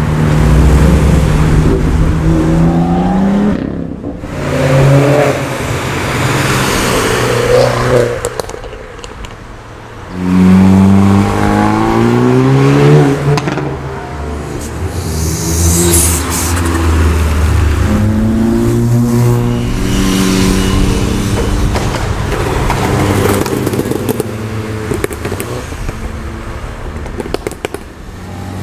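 Car engines accelerating past one after another, the pitch rising as they rev up through the gears. The loudest pull comes about ten seconds in.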